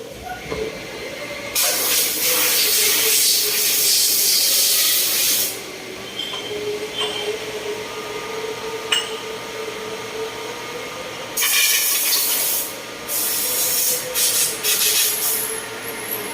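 Machinery in a CNC machining factory running with a steady hum, broken by loud bursts of hissing. The longest burst lasts about four seconds, and shorter ones come near the end. There is a single sharp click about halfway through.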